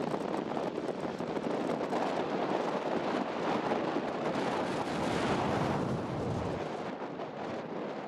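Wind buffeting the microphone: a rushing, rumbling noise whose deep rumble drops away about six and a half seconds in.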